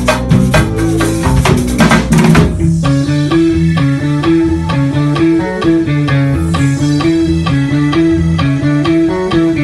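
Live band rehearsal: dense drum and percussion strokes for about the first two and a half seconds, then the drums cut out and an electric bass and keyboard carry a repeating groove riff on their own.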